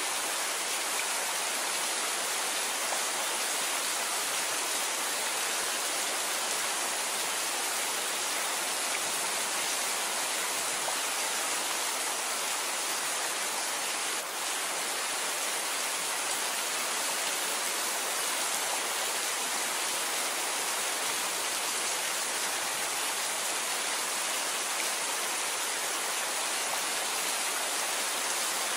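Steady rain falling on foliage, an even hiss without pauses, with a brief dip in level about halfway through.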